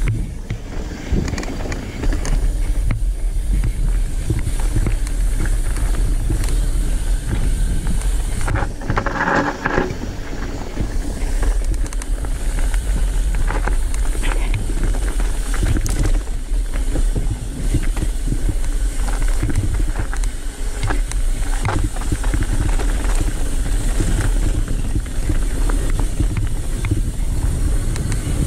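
Mountain bike descending a rough forest trail, heard through a handlebar-mounted action camera: wind buffeting the microphone as a steady rumble, with a dense rattle of small knocks from the bike bouncing over roots, rocks and wooden slats. A louder burst lasting about a second comes about nine seconds in.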